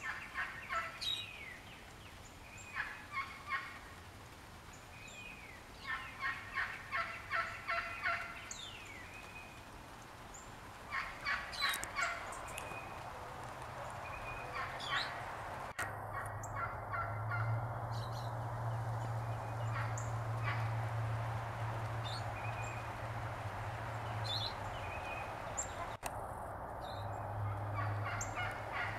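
Male wild turkey gobbling over and over, each gobble a rapid rattling burst, with the loudest run of gobbles a few seconds in and more near the end. A steady low hum sits under the second half.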